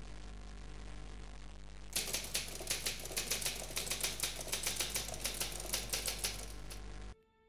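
Typewriter typing sound effect: a rapid run of key clacks, about six a second, that starts about two seconds in and stops suddenly near the end. Before the clacks there is a steady low hum and hiss.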